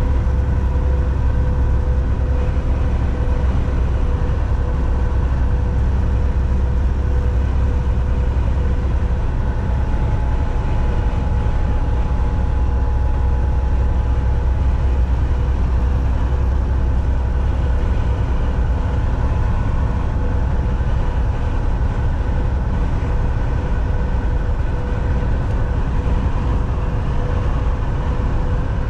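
Semi truck cruising on the highway: a steady low engine drone with road noise and a faint steady whine.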